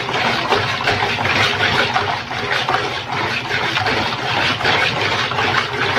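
Wire whisk beating a liquid egg, oil and sugar batter in a plastic bowl with rapid, rhythmic strokes, mixing until the sugar dissolves.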